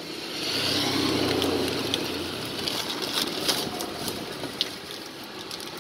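Heavy rain falling steadily, with a motor vehicle's engine humming past during the first couple of seconds. A few sharp clicks sound later on.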